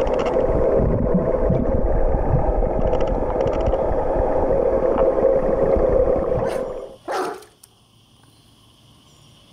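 Water churning and bubbling around a swimming dog in a pool, heard through an underwater camera as a dense, muffled rumble. About six and a half seconds in it cuts out, with a brief rushing splash as the camera breaks the surface, leaving quiet open air.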